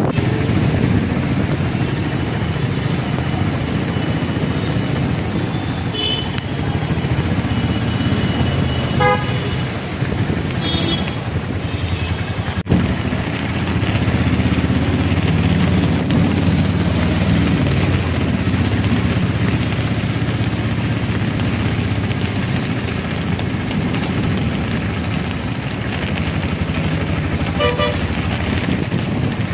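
City road traffic: motorcycle and car engines running past over a steady wash of noise, with a few short horn toots.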